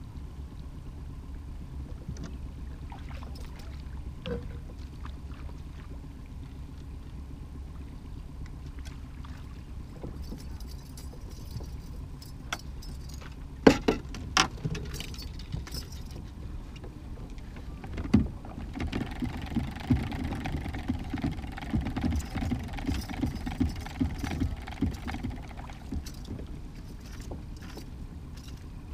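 Steady low hum of a fishing boat's outboard motor running at trolling speed. Two sharp knocks come about halfway through, then several seconds of rapid, irregular knocking and rattling near the end.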